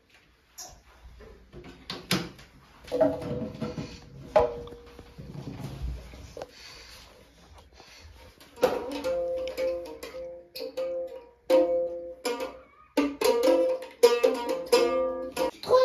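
A pink toy ukulele strummed by a child: two single strums, then repeated strumming of the same chord from about halfway, quicker near the end.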